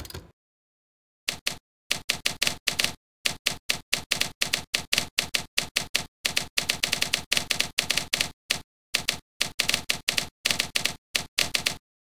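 Typewriter key clacks played by a typewriter-style word processor for each keystroke as text is typed: quick runs of sharp clicks with brief silent gaps, starting about a second in.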